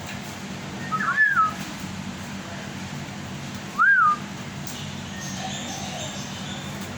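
Two clear whistled notes, each rising and then falling, about three seconds apart, over a steady low hum.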